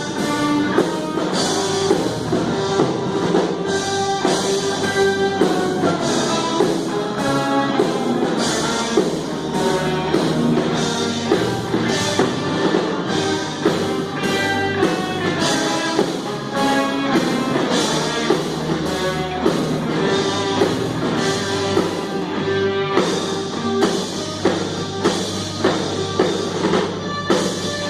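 A band playing rock music, the drum kit keeping a steady beat of about two hits a second under guitar.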